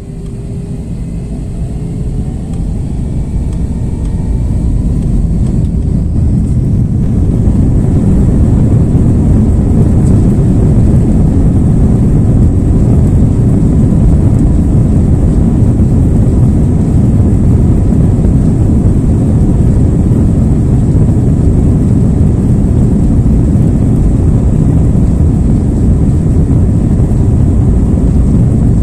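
Airliner's jet engines spooling up to takeoff thrust, heard from inside the passenger cabin: a loud rumble with a faint rising whine that builds over the first several seconds, then holds steady through the takeoff roll.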